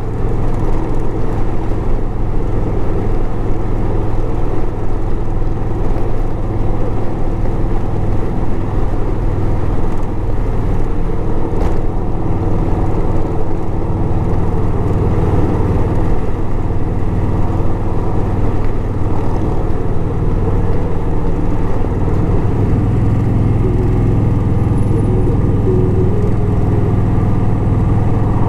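V-twin touring motorcycle cruising at highway speed, heard from the rider's seat: a steady engine drone with wind rush. The engine note grows a little louder near the end.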